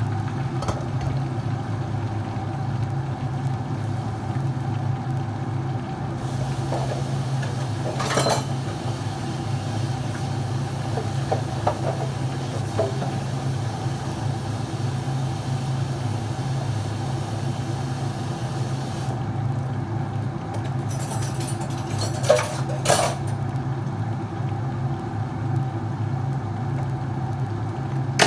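Steady low hum of a running kitchen appliance motor. A hiss comes in from about six seconds to about nineteen seconds, and short clinks of kitchenware sound about eight seconds in and twice near the end.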